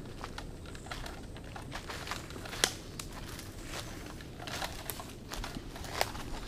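Footsteps crunching and rustling through dry leaf litter and undergrowth, heard as irregular crackles and clicks. Underneath runs a faint steady low rush of distant ocean surf.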